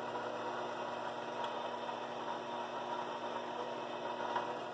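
Shop Fox 6x10 mini lathe running at very low speed: a steady electric motor hum and whine from the drive. It cuts off at the very end as the lathe is switched off.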